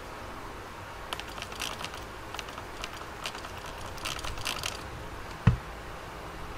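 A hand trigger spray bottle of leak-detection solution squirted in a quick run of short spritzes over a pressurized two-stroke scooter engine, checking for air leaks, then a single low thump near the end.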